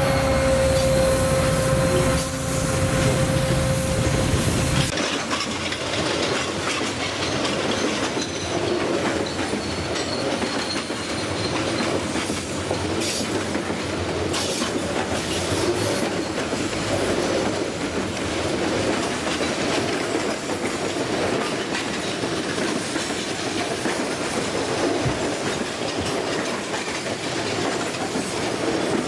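Diesel-electric freight locomotives passing close by, with a deep engine rumble and a steady whine. About five seconds in this gives way to freight wagons rolling past, their wheels clattering and clicking over the rails.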